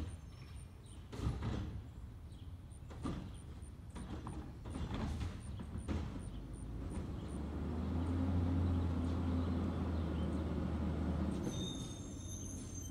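CNG garbage truck, an Autocar ACX with a Heil Odyssey body and Curotto Can cart arm, working from down the street: a few sharp knocks and bangs in the first six seconds, then a steady low engine and hydraulic hum, the loudest sound here, from about seven seconds in until it eases off near the end.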